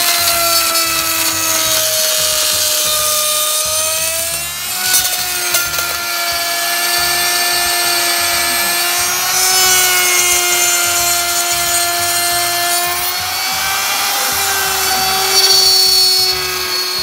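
Porter-Cable router running as a CNC mill spindle, its 1/4-inch bit routing a square cut into 1/2-inch plywood. A steady high motor whine with cutting hiss, the pitch wavering slightly as the load on the bit changes.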